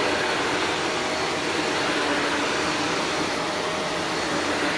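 Shark NV355 Navigator Lift-Away upright vacuum running steadily: an even rush of air over the motor hum, with a faint steady whine. The owner hears a little wear in the motor bearings.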